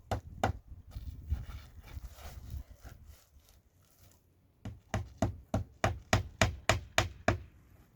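Hammer blows on wood, with a few strikes, a short pause, then a quick even run of about ten blows, about three a second, as when driving in a nail.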